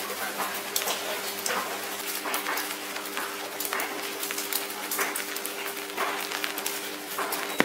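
Rain showers dripping onto wet paving in scattered, irregular ticks over a steady low hum, with one sharper click at the very end.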